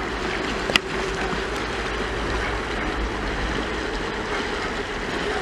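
Steady rush of clear, shallow river water running over a rocky bed, with one sharp click about a second in.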